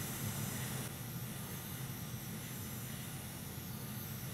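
Hot air rework station blowing a steady hiss onto a Thunderbolt USB-C connector, heating its solder so the connector can be lifted off the board.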